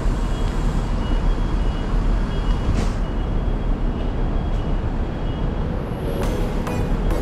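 Street traffic rumble, with a short hiss about three seconds in and a few sharp clicks near the end.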